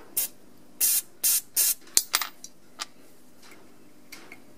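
Short squirts of aerosol carburettor cleaner sprayed through a straw into the brass nozzle (emulsion tube) of a Honda GCV carburettor, flushing out its tiny holes. Several quick hissing squirts in the first two seconds or so, then two faint ones near the end.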